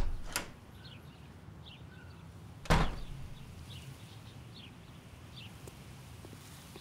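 A glass-paneled French door's handle and latch clicking as the door is opened, then a loud thump about three seconds in. Faint short bird chirps sound over a low outdoor rumble.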